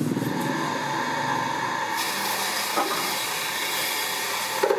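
Steady whirring hiss of an electric motor turning a spoked wooden clock frame on its shaft. It grows brighter about two seconds in, and a short knock comes near the end.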